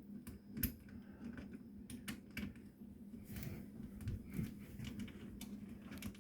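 Faint, irregular light clicks and taps from garbage disposal parts being handled and fitted under a sink.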